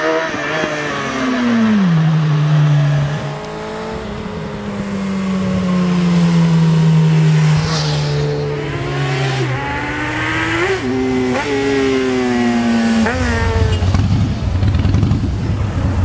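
Sport motorcycle engine running hard as the bike approaches. Its pitch drops about a second in and then falls slowly for several seconds during a wheelie. It rises and falls sharply a few times before a rougher, lower engine rumble takes over near the end.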